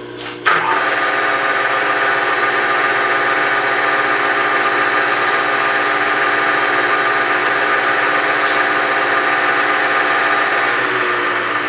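Bridgeport J-head milling machine's spindle drive running on its three-phase motor with a newly fitted belt. A click comes about half a second in, and the drive then runs louder and steadily with a whine of several steady tones. It eases back down just before the end.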